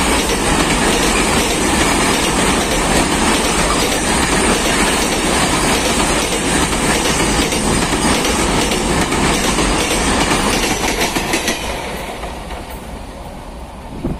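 Wheels of a BCACBM car-carrier rake's wagons rolling past close by, a loud steady rumble and rattle on the track that fades away over the last few seconds as the final wagon passes. A short thump near the end.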